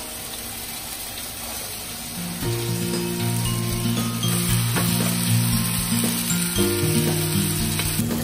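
Food frying in a hot pan, a steady sizzle, with background music that becomes louder about two seconds in.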